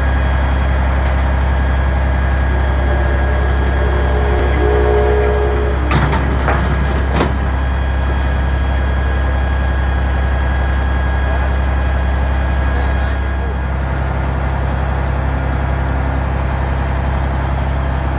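Heavy crane truck's diesel engine idling with a steady low hum, its note shifting slightly about halfway through. Two sharp knocks come near the middle.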